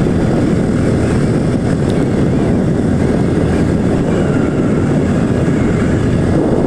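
Motorcycle riding along a road: a steady, even rush of engine, wind and road noise.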